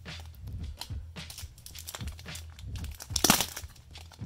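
Trading cards and their plastic packaging being handled: a run of small crinkles and clicks, with one louder tearing rip about three seconds in.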